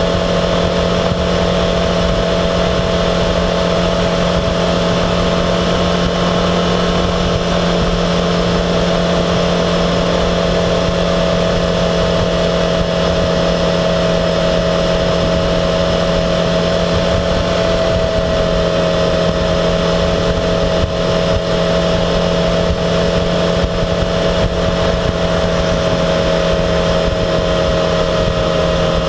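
Yamaha XJ6F motorcycle's 600cc inline-four engine running at an even pitch while cruising, with wind noise over it.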